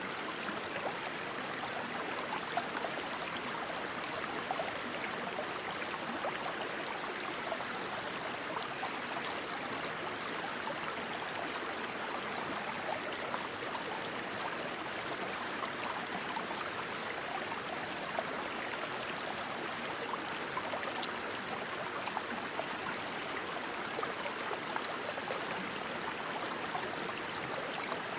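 Stream of rushing water running steadily. Short high chirps sound over it at irregular intervals, with a quick trill about halfway through.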